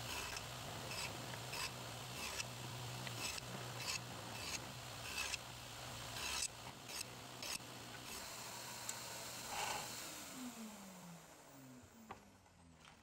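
Faint table saw running with a steady hum and a series of short scraping ticks as a hardwood board is fed along the fence to cut a groove. About ten seconds in the motor is switched off, and its hum falls in pitch as the blade spins down.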